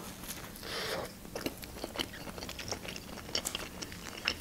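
A bite into a hot dog topped with lettuce, with a short crunch about a second in, then close-up chewing with many small wet clicks.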